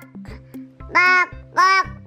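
A tired toddler whining in two short, high-pitched tearful cries in the second half, fussing to be taken to bed.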